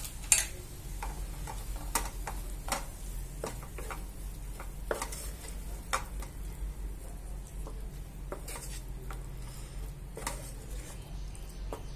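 A wooden spatula stirs mint paste, onion and melting butter in a non-stick kadai, giving irregular scrapes and knocks against the pan over a light sizzle of frying.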